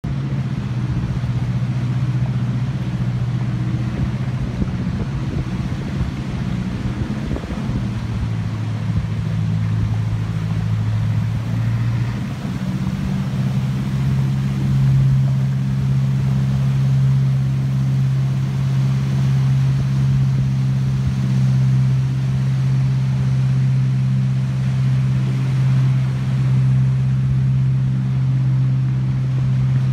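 Boat engine running steadily with a low drone; its speed drops about 8 seconds in, picks up again around 12 seconds, then holds steady.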